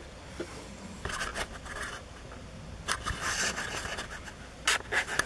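Handling noise from the camera being adjusted: soft scrapes and rustles, with sharp clicks about three seconds in and a few louder ones near the end.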